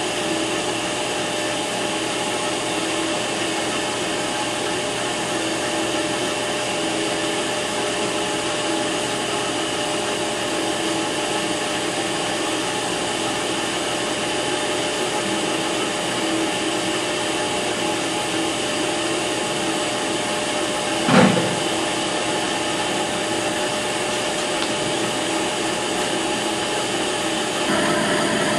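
Ammco bench brake lathe running a slow finishing cut on a brake rotor: a steady mechanical whir from the motor and spinning rotor with several steady tones. A single short knock sounds about two-thirds of the way through.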